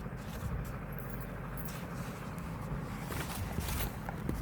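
Steady low background hum with a few faint clicks and taps, most of them around three to four seconds in.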